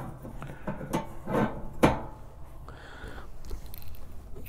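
Three knocks in the first two seconds, then a short scrape about three seconds in, as parts are handled at the cooking grate of a Char-Griller Akorn kamado grill.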